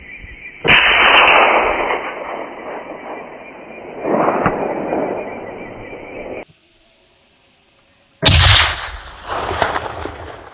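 Four loud booms, each dying away in a long rolling fade: one about a second in, one about four seconds in, and two close together near the end.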